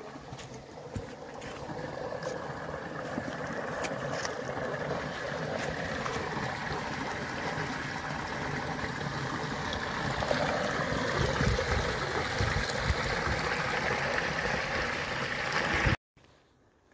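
Small woodland brook rushing and splashing over rocks, growing louder as the microphone nears the water, with a few footsteps crunching on dry leaves at first. The water sound stops abruptly near the end.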